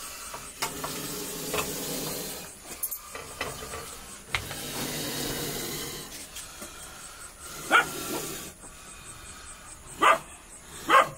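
Dog barking, three short sharp barks in the second half.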